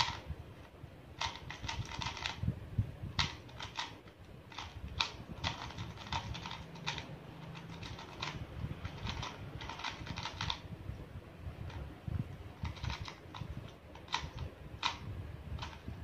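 Plastic clicking of a 2x2 Rubik's cube being turned by hand, in quick runs of turns broken by short pauses while it is being solved.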